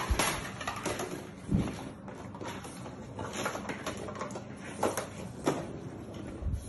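Puppies moving about in a wire playpen: scattered clicks, rattles and light scrabbling on the pen floor, with a handful of sharper knocks against the pen.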